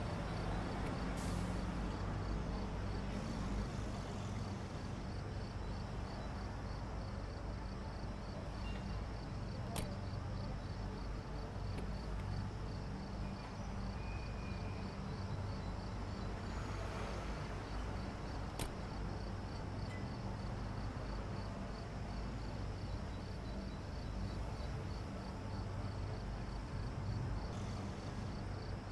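Night ambience: crickets chirping in a steady, even pulse over a low, steady rumble of distant traffic.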